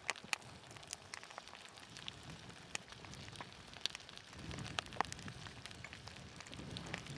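Faint, irregular crackling and ticking of an advancing pahoehoe lava toe as its cooling glassy crust cracks, with a soft low rumble about four seconds in and again near the end.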